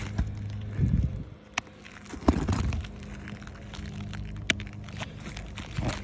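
Footsteps on an asphalt shingle roof: a few dull thuds and scuffs, with a couple of sharp clicks.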